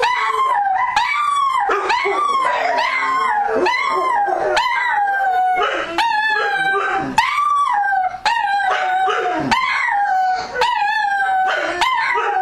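Dogs howling and crying: short, pitched yowls rising and falling about once or twice a second, several overlapping at different pitches.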